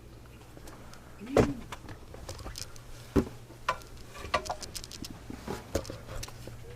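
Scattered small clicks and knocks of things being handled, with two louder knocks, about one and a half and three seconds in, over a steady low hum.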